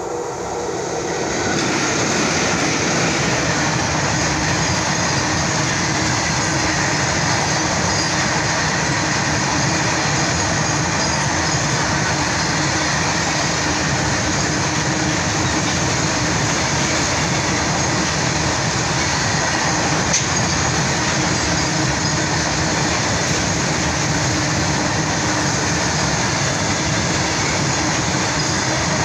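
Passenger train passing close by at speed: a continuous rumble and rattle of wheels on the rails. It builds over the first couple of seconds, then holds steady and loud.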